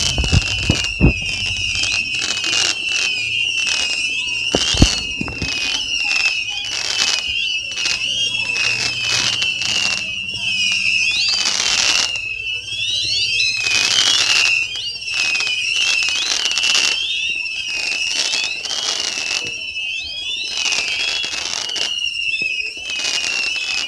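A barrage of whistling fireworks: many high whistles overlapping and warbling up and down without a break, with crackling pops throughout. Two thumps come in the first second and a sharp bang, the loudest sound, about five seconds in.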